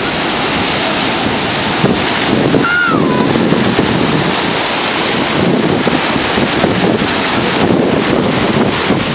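Ocean surf breaking and washing through shallow water, a steady rush with wind buffeting the microphone.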